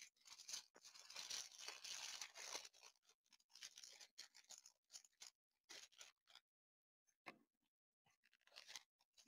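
Faint crinkling of a thin plastic packaging sleeve being handled, loudest for a second or two near the start, then a few light taps and rustles.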